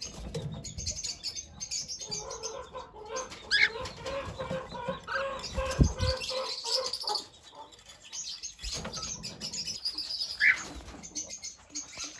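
Pet cockatiel chirping in short, high, rapid notes with a few rising calls. A low thump comes about six seconds in.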